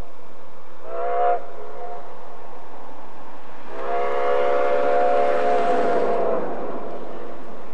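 Steam locomotive's chime whistle, several notes sounding at once: a short toot about a second in, then a long blast from about the middle with a hiss of steam, dying away near the end.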